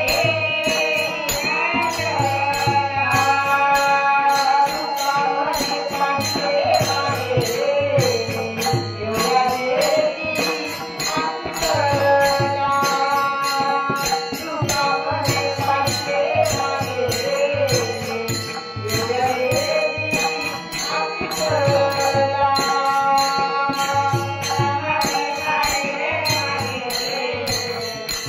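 A woman singing a Marathi gaulan devotional song in long, bending phrases, accompanied by a bhajan group's steady hand percussion.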